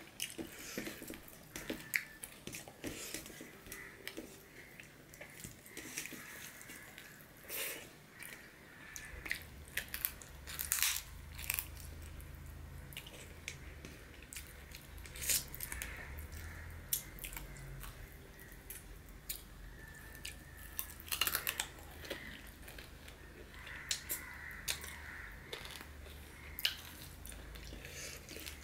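Close-up chewing and wet mouth sounds of a man eating rice and chicken curry by hand, with many short sharp smacks and clicks at an uneven pace.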